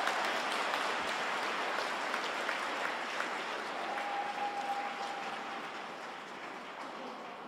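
Audience applauding in an ice rink, with many small claps that slowly die away, and one held tone for about a second near the middle.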